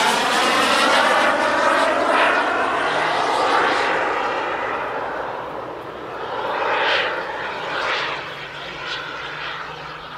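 Simjet 2250 model gas turbine of a Boomerang Elan RC jet flying past overhead: a loud jet whoosh with a sweeping, phasing quality. It fades as the jet moves away, with a couple of brief swells about seven and eight seconds in.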